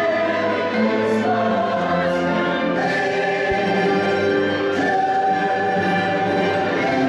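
Christmas parade music: a choir singing over an orchestra in long held chords.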